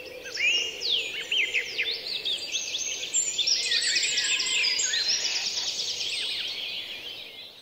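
A dense chorus of many birds calling at once: rapid chirps and whistles with quick rising and falling notes, fading out near the end.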